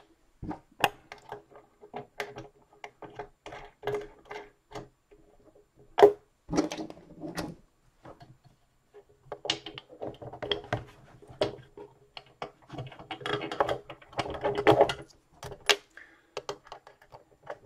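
Small hardware being fitted by hand onto bolts through a wooden board: scattered metal clicks, taps and scrapes of flat washers and nylon lock nuts, with one sharper knock about six seconds in and a busier stretch of clicking and rattling in the last third.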